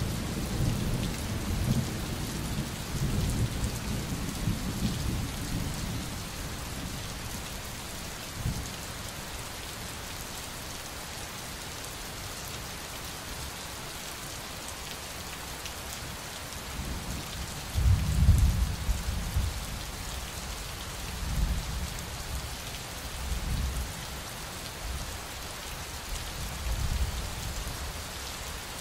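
Steady rain with rolling thunder: low rumbles through the first few seconds, the loudest about two-thirds of the way in, then a few smaller ones.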